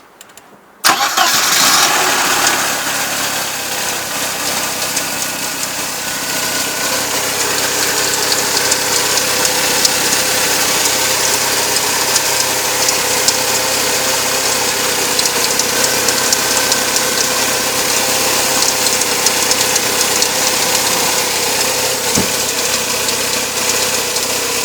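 Mercedes-Benz W201's engine starting about a second in and then idling steadily, with a fast light clicking running through it from the power steering pump area, a noise that should not be there.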